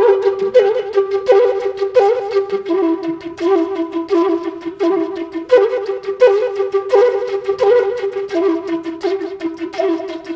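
Bansuri bamboo flute playing a free-style Indian classical melody in quick, short notes. It starts suddenly out of silence.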